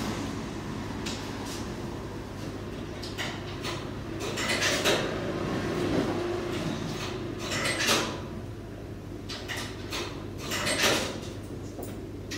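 Laundromat machine-room sound: a steady low hum with intermittent rustling and clattering as bed linen is loaded into commercial front-loading washers and the machine doors and controls are handled, the clearest three spaced a few seconds apart.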